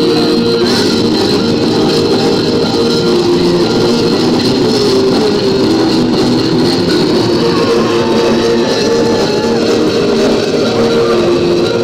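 Loud, steady rock music with guitar, a melody of held notes moving step by step.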